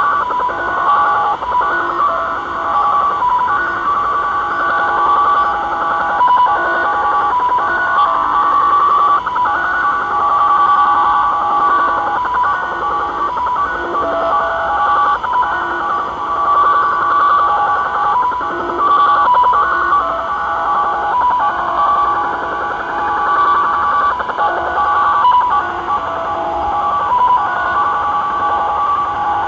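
Japanese "slot machine" (XSL) multi-tone data signal on 4154 kHz, received in upper sideband on a Tecsun PL-600 portable shortwave radio. It is a continuous cluster of several warbling tones that shift and flicker without pause.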